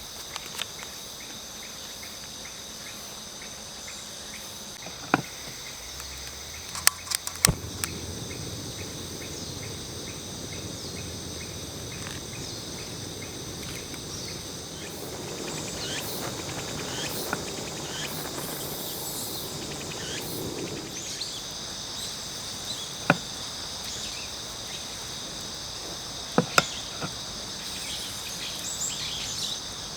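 Steady high chirring of insects, with a few sharp clicks or knocks scattered through and a soft rushing noise in the middle.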